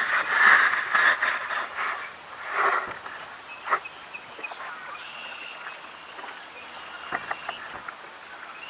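Kayak paddle splashing and dripping in the water in short bursts over the first few seconds, then quieter water lapping with a few small knocks against the kayak's plastic hull.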